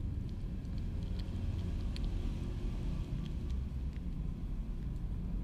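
A kitten licking and chewing rice, heard as a few faint, irregular wet mouth clicks over a steady low rumble.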